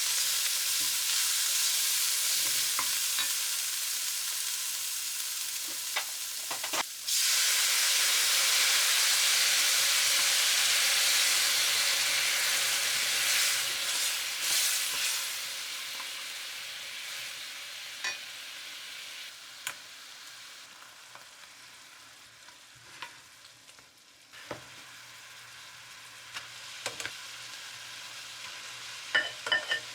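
Fried rice sizzling in a frying pan as it is stirred, with sharp clicks of a spatula against the pan. The sizzle jumps louder just after a knock about seven seconds in, then dies down over the second half.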